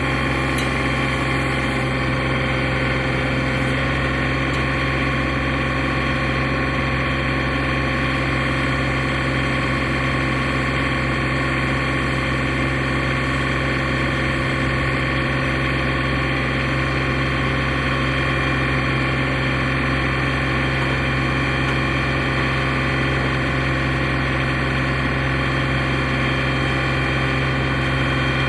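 Portable sawmill's engine running steadily at one even pitch.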